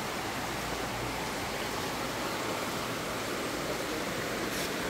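Shallow river rushing steadily over rocks.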